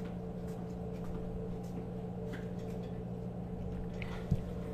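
Faint clicks of a receipt printer's plastic cover and its screws being worked loose, with a light knock about four seconds in, over a steady low hum.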